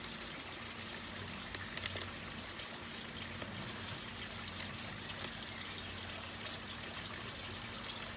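Steady hiss of running, trickling water with a faint low hum under it, and a few light clicks about one and a half to two seconds in.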